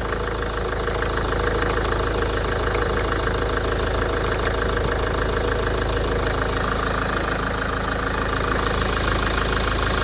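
Mahindra XUV engine idling steadily. It keeps running with the battery terminal disconnected, a sign that the newly fitted alternator is charging and the stalling fault is cured.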